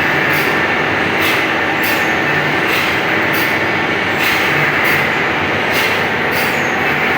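Band saw blade sharpening machine running, its grinding wheel working the saw teeth: a steady machine noise with a sharper hissing grind that comes back about every 0.7 seconds as each tooth is ground in turn.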